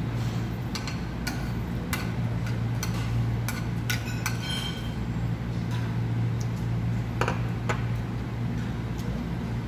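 Spoon and fork clicking and scraping against plates during eating, in short irregular clinks, one ringing briefly about halfway through, over a steady low hum.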